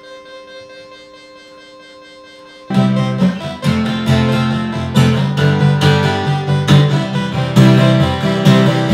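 An acoustic guitar strummed along with a homemade Arduino fidget-spinner synthesizer, its spinners driving the synth notes. The jam starts suddenly about a third of the way in, after a few seconds of faint, steady held tones.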